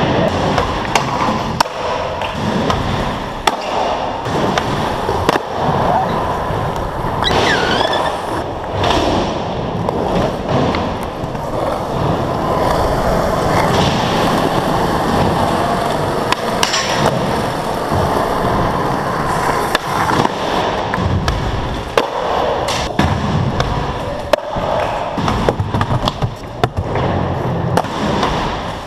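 Skateboard wheels rolling on smooth concrete, broken at irregular intervals by sharp clacks of the board being popped and landed.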